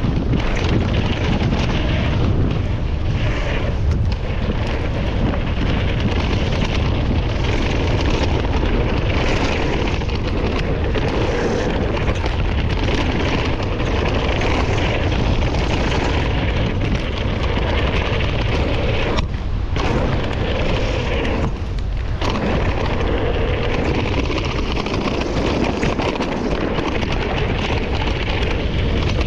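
Mountain bike descending a dirt flow trail at speed: a steady low rumble of wind buffeting the microphone, mixed with tyre and trail noise, with two brief drops in the noise about two-thirds through.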